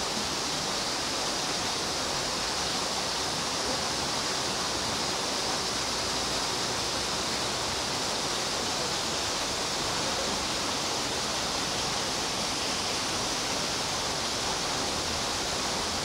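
Steady, even rushing of falling water.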